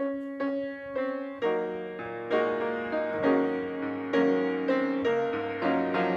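Grand piano playing the slow introduction to a song: single notes and chords struck one after another and left to ring.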